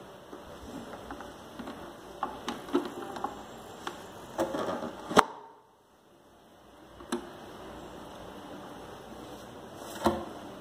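Plastic tubing and push-fit connectors on a reverse-osmosis water purifier being handled and connected: a run of small clicks and knocks, the sharpest about five seconds in, then the sound drops away briefly, with two more single knocks later.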